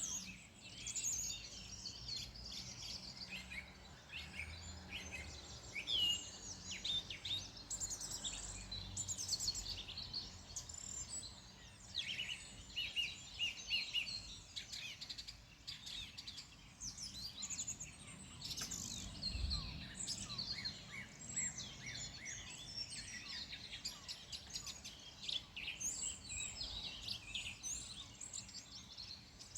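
Several wild birds singing and calling at once, a dense chorus of short chirps and trills, over a faint low background rumble.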